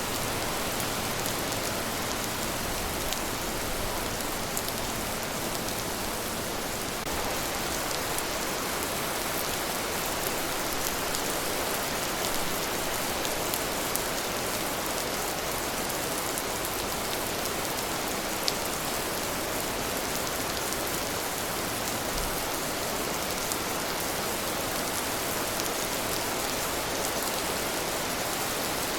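Steady rain falling: an even hiss with scattered sharp drop ticks, one louder tick about two-thirds of the way through.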